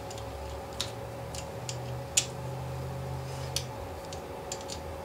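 Small clicks and ticks of ATV wiring connectors and terminals being handled, a few scattered ones, the loudest about two seconds in, over a steady hum.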